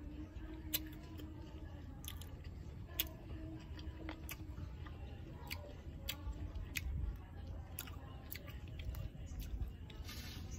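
A person chewing food close to the microphone, with many short, sharp mouth clicks and smacks scattered through, over a steady low rumble.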